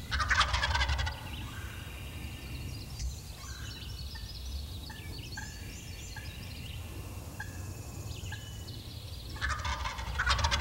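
Wild turkey gobbling twice, a rapid rattling gobble of about a second at the start and another near the end, with faint short chirps between.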